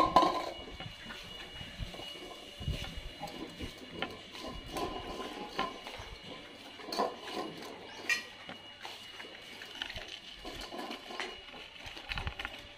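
Several dogs eating from stainless steel bowls on a tiled floor, the metal bowls clinking and scraping now and then as they are nosed around, with a louder knock at the very start.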